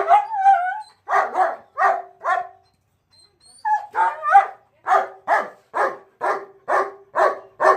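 German shepherd barking: a short rising-and-falling yelp, then four barks, a pause of about a second, and then a steady run of barks about two a second.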